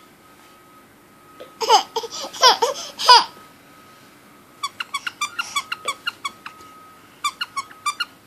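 An 8.5-month-old baby squealing and babbling in high, sliding calls, followed by two runs of quick, short, high-pitched squeaks at about five a second.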